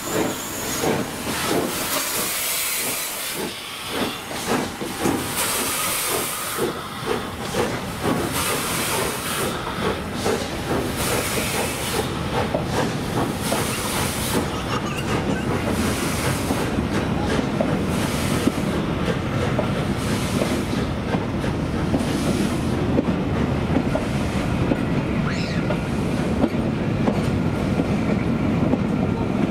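Steam locomotive 46115 Scots Guardsman working a train out, with evenly spaced exhaust beats and hissing steam. About halfway in, the heavier rumble of the train rolling past takes over, with the wheels clicking over the rail joints.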